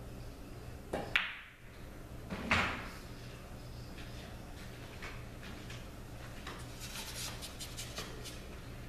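Pool shot: the cue tip strikes the cue ball and it clacks sharply into an object ball about a second in, then about a second and a half later the object ball drops into a pocket with a duller knock. A run of light clicks follows near the end.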